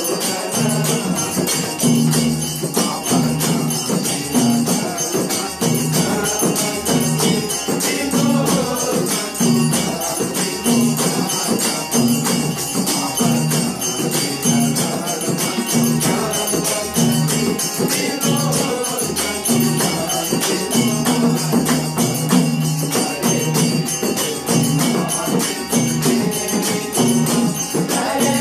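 A devotional bhajan played live: harmonium chords and a madal barrel drum under men's singing, with a steady fast jingling of small hand cymbals.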